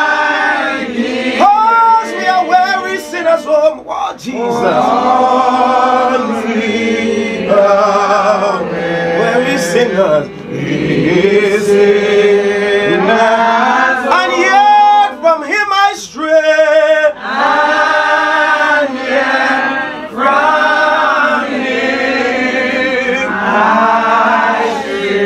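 A church congregation singing a hymn together in slow, drawn-out sung phrases.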